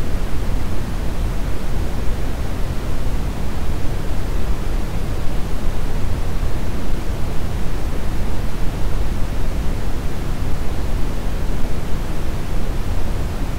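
Steady brown noise: a loud, even rushing hiss weighted toward the deep low end, with no tones or events.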